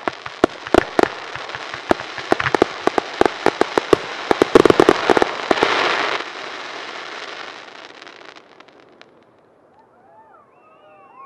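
Fireworks display: rapid bangs of bursting shells with crackle, thickest about four to five seconds in, then a hiss of crackling stars that dies away about eight seconds in. A few faint honking bird calls come near the end.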